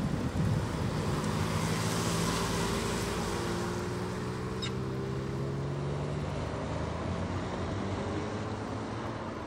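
Hyundai i20 N prototype's turbocharged four-cylinder engine and exhaust as the car pulls away, the engine note rising slowly as it gains speed, over tyre and road noise.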